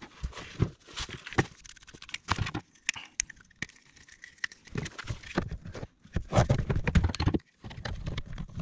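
Irregular clicks and knocks of plastic waste-pipe fittings being handled as a clamp-on strap boss is fitted to a plastic waste pipe. A cluster of heavier thumps comes about six to seven seconds in.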